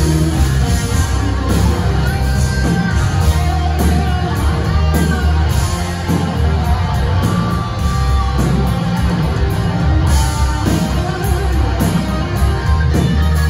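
A live rock band playing loud on a concert PA: electric guitars, bass guitar and drums.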